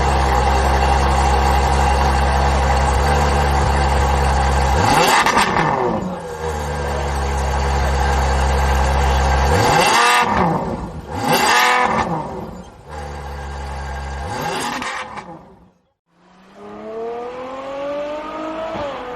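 Ferrari F12's V12 engine and exhaust running hard. Its pitch drops and climbs again several times, around five seconds in and twice between ten and thirteen seconds. It fades away briefly about sixteen seconds in, then climbs in pitch again with a short dip near the end.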